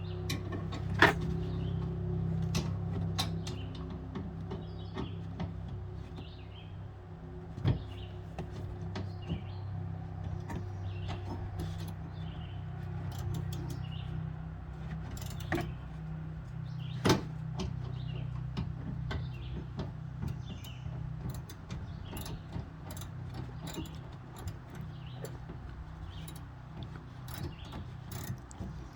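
Scattered clicks, taps and knocks of tools and metal and plastic parts being handled while a car's interior trim and jack-mount bracket are taken apart, with three louder knocks, about a second in, near the middle and about two-thirds through. A steady low hum runs underneath.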